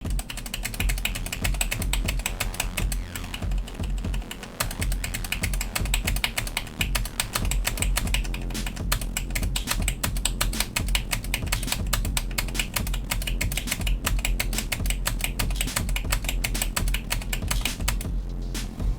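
Rapid typing on a Logitech G413 mechanical keyboard with Romer-G switches: many quick key clicks, over background music.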